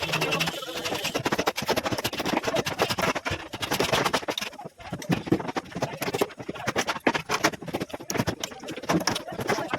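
Rapid, irregular knocking and clattering from formwork being set up for a concrete slab.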